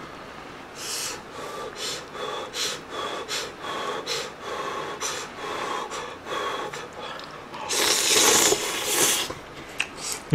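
A person slurping ramen noodles: a run of short slurps and chewing sounds, about one every two-thirds of a second, then one long, loud slurp about eight seconds in.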